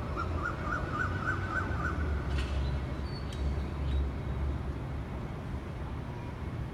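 A bird calls a quick run of about eight short notes, rising slightly in pitch, over a steady low rumble.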